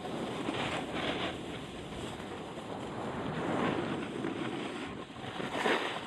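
Wind rushing over the microphone of a camera moving downhill on a ski slope, mixed with the hiss and scrape of edges sliding over packed snow, swelling a few times.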